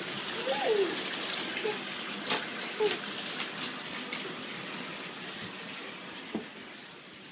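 Water running into a bathtub as a steady hiss, with a toddler's short babbles. From about two seconds in comes a metallic jangling of small bells, shaken in quick clusters for a couple of seconds, then fading.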